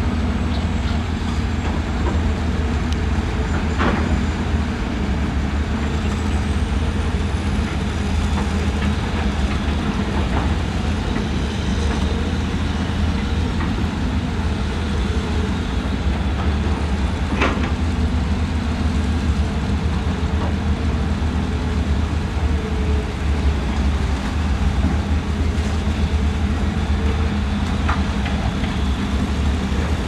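Diesel engines of hydraulic excavators running steadily under load as a deep, continuous drone, with a few sharp knocks, the loudest about halfway through.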